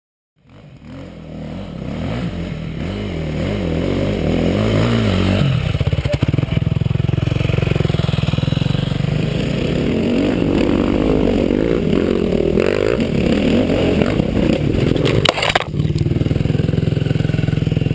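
Dirt bike engine running and revving, its pitch rising and falling. There is a burst of scraping and clattering near the end as the bike goes down into the brush.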